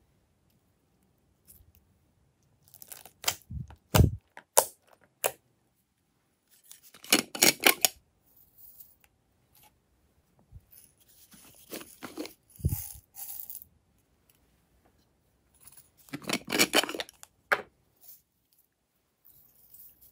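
Small plastic slime toppings (beads, sequins, glitter) rattling and clicking as they are handled and dropped into a glass tray of slime, in four short bursts of sharp clicks.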